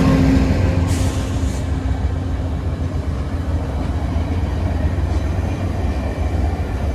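VIA Rail passenger train rolling through the station: a steady low rumble, with a short hiss about a second in.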